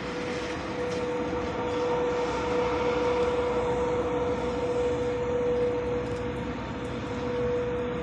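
Vacuum street-cleaning truck running its suction fan and engine: a steady, jet-like whine over a broad rushing noise, swelling a little in the middle.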